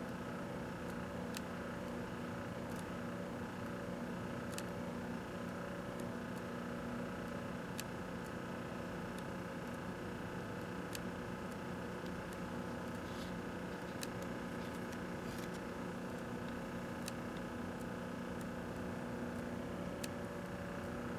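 1984 Kenmore microwave oven running with a steady, even hum, with sharp faint clicks every second or two.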